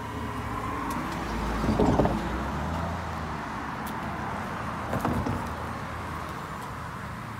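Road traffic going by on the street: a car passes, swelling to its loudest about two seconds in with engine hum and tyre noise, and another shorter swell comes about five seconds in over a steady low engine hum.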